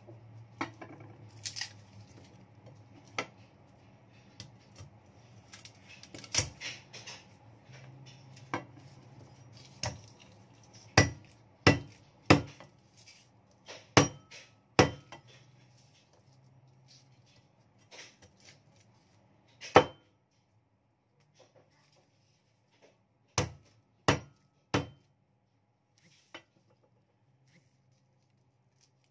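Cleaver striking garlic cloves on a wooden chopping board: a series of sharp, separate knocks, several in quick succession near the middle and three more later, with softer handling clicks in between. The garlic is being hit to loosen the skins for peeling.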